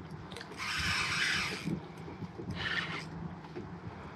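Fishing reel's drag buzzing in two bursts, the first about a second long and the second shorter, as a hooked sheepshead pulls line against it.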